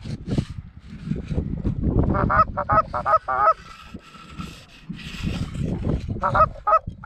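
Canada goose honks and clucks, in two quick runs of short calls, one in the middle and one near the end. A low rustling rumble of wind and stubble against the microphone comes under the first few seconds.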